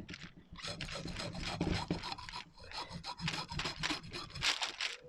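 Sea bass being descaled: a blade scraped repeatedly along the fish's skin, a run of quick rasping strokes that stop near the end.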